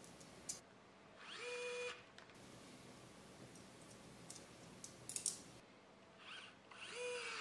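Pen-style electric precision screwdriver driving screws into a BIQU Panda Extruder housing. The motor whirs twice, each run under a second, rising quickly in pitch and then holding steady. A few sharp clicks fall between the runs, the loudest about five seconds in.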